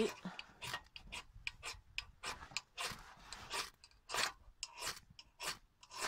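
Ferrocerium fire steel scraped with a striker in short, quick strokes, about three a second, to throw sparks onto fatwood tinder.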